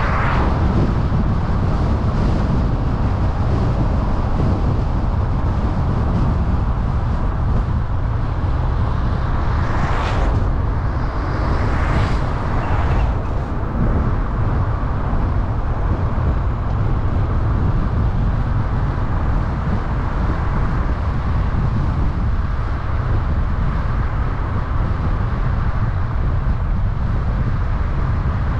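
Steady road and wind noise of a car driving, a constant low rumble. Brief louder whooshes come right at the start and a few more around ten to thirteen seconds in, as of other vehicles going past.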